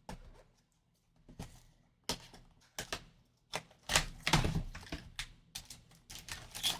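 Plastic shrink wrap being peeled off a trading card hobby box and the box being handled and opened: an irregular run of crackles and taps, sparse at first and busier and louder from about two seconds in.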